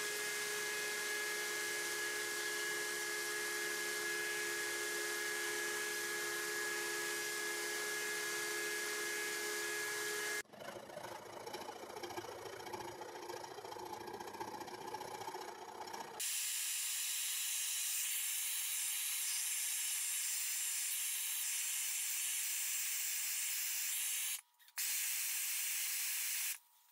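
A belt grinder runs steadily with a constant whine for about ten seconds. Then a small hand file scrapes unevenly against the steel for several seconds, and from about sixteen seconds in a gas torch flame hisses steadily, broken once by a short gap near the end.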